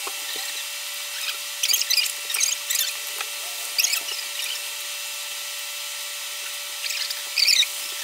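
Small metal hand tools from the bike's toolkit clinking and rattling as they are picked up and handled, in several short spells, the loudest about two seconds in and near the end. A steady hiss with a thin steady tone lies beneath.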